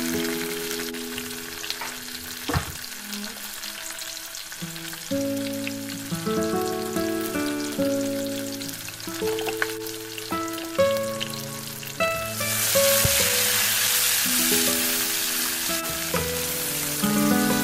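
Chopped tomatoes and fried onions sizzling in hot cooking oil in a frying pan, with background music. The sizzle grows much louder about twelve seconds in as the mix is stirred with a wooden spoon, and there are a few sharp clicks.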